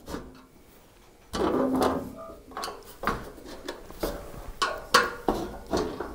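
Number two Robertson screwdriver backing the screws out of a steel breaker-panel cover. The sound is metal scraping and clicking with a run of small knocks against the sheet-metal cover, starting about a second in.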